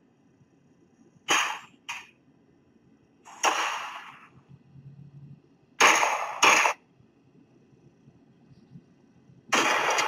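Recorded gunshot sound effects played one after another through a smartphone's speaker: a shot about a second in with a shorter crack just after it, a longer shot with a decaying tail around three and a half seconds, two shots close together around six seconds, and another shot near the end.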